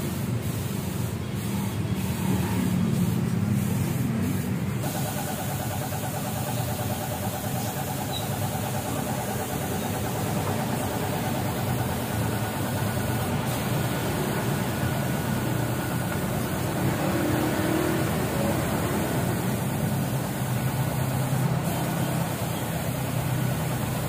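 Compressed-air spray gun hissing steadily as it sprays black paint onto a motorcycle muffler, over a steady low motor hum.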